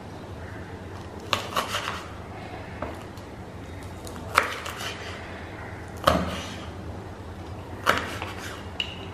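Kitchen knife knocking and scraping on a wooden cutting board as a green chilli is slit lengthwise, with a short knock every second or two.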